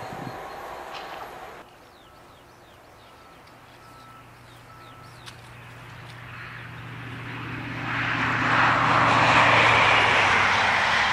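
InterCity 125 High Speed Train with Class 43 diesel power cars approaching and passing at speed. A steady engine hum grows from faint to loud from about six seconds in, and the rush of the passing coaches is loudest near the end. It opens on the tail of another train's noise, which cuts off about a second and a half in.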